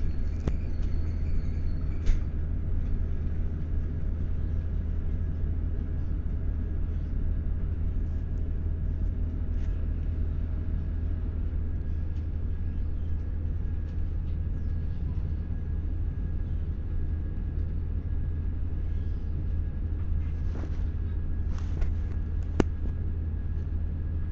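Steady low rumble inside the carriage of a Class 170 Turbostar diesel multiple unit running along the line, with a faint steady whine over it. A few sharp clicks sound, one about two seconds in and a small cluster near the end.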